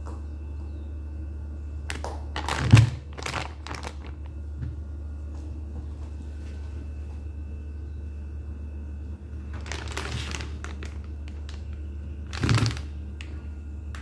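Plastic bag of fish steaks being handled: crinkling plastic and thunks, the loudest thump about three seconds in and two more rustling bursts near the end, over a steady low hum.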